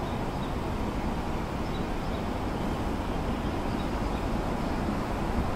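Distant helicopters flying in formation: a steady low rumble with no separate beats or events.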